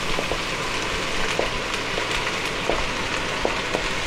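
Sliced onions sizzling in hot olive oil in a stainless-steel pot: a steady frying hiss as the onions start to sweat. A metal spoon stirring them clinks lightly against the pot a few times.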